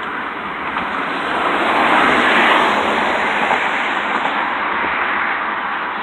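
Combine harvester running in the field, a dense steady mechanical noise that swells from about a second in, peaks around two to three seconds, then eases a little.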